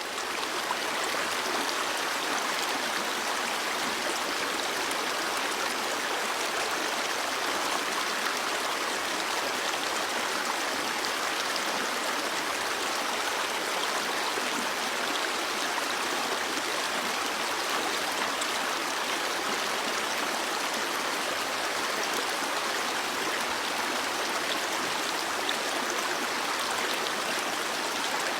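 A stream flowing steadily: an even rushing, babbling water sound with little deep rumble.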